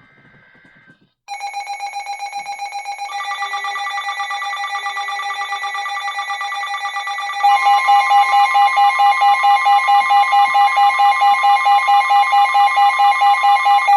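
Weather radio alert alarm going off for a flash flood warning: a fast-pulsing electronic beep, about four to five beeps a second, that gets louder about seven seconds in.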